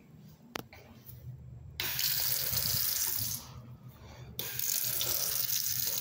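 Touchless sensor faucet running water into a porcelain sink basin. The water comes on about two seconds in, shuts off after about a second and a half, and comes on again a second later.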